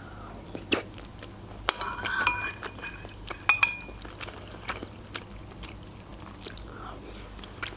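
Chewing a mouthful of soft dumplings, with a metal spoon clinking against a ceramic bowl in two short ringing bursts, about two seconds in and again about a second and a half later.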